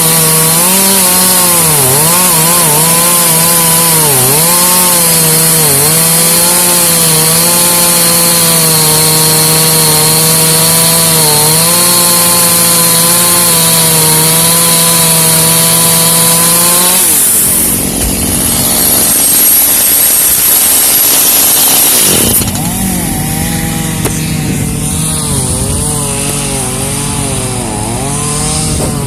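Chainsaw cutting through pecan wood, its engine pitch dipping again and again as the chain loads up in the cut. About 17 seconds in, the engine tone gives way for roughly five seconds to a different, noisier sound, then a saw is heard cutting again a little more quietly.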